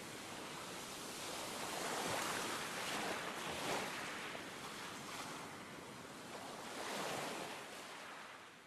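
Surf washing onto a sandy beach: a steady hiss of small waves that swells a few times, then fades away near the end.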